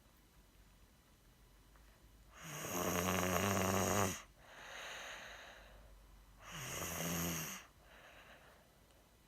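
Snoring during sleep: a long, loud, fluttering snore, then a shorter second one about four seconds later, each followed by a softer breath.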